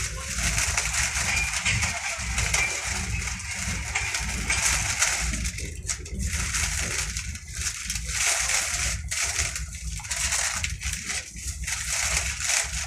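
Running noise of a moving train heard inside the passenger coach: a steady low rumble from the wheels and bogies under a loud hiss of rushing air, swelling and easing about once a second in the second half.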